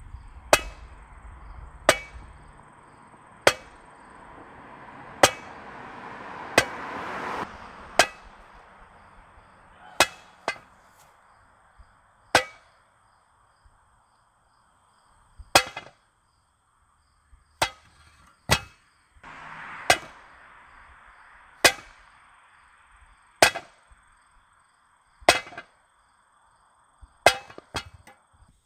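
Sledgehammer striking a wooden block set in a metal spike anchor, driving the anchor into the ground: a long run of sharp, irregular blows, roughly one every one to two seconds, with a couple of quick double hits near the end.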